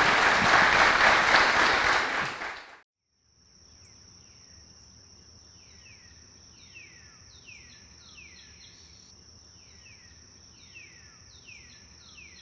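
Audience applause that fades out under three seconds in. After a brief silence, a faint nature-sound outro follows: a steady high insect trill with repeated short, falling bird chirps.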